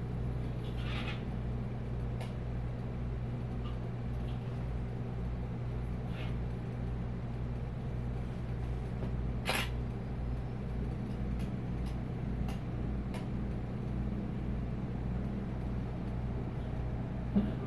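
Steady low droning hum with a few faint clicks scattered through it, the sharpest about ten seconds in.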